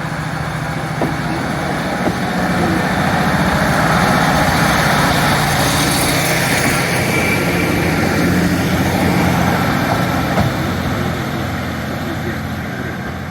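Diesel passenger train's underfloor engine running under power, growing louder to a peak a few seconds in and then slowly easing off as the train moves past.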